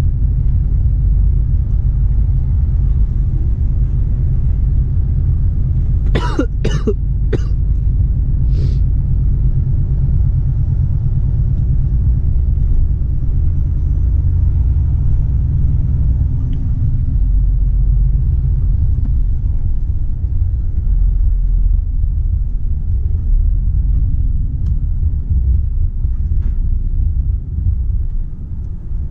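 Volvo FH 460 truck's diesel engine and drivetrain giving a steady low rumble. About six seconds in, the driver gives a short burst of three coughs, then a smaller one a second later; he is down with a flu.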